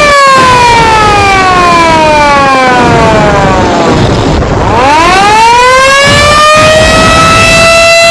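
A loud siren wailing. It holds a steady high note, slides slowly down in pitch for about four seconds, then climbs back over about two seconds to the same steady note and holds it.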